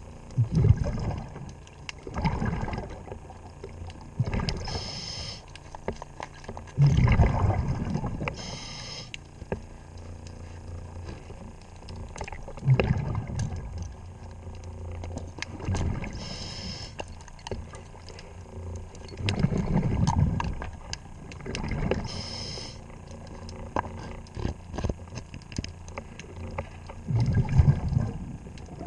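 A scuba diver's regulator breathing underwater: short hissing inhalations and the bubbling rumble of exhaled air, repeating every few seconds, with scattered small clicks and knocks.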